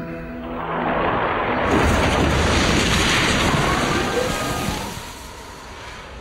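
Cartoon sound effect: a loud rushing whoosh with a low rumble that swells about a second in, holds, and dies away near the end, with faint gliding tones inside it.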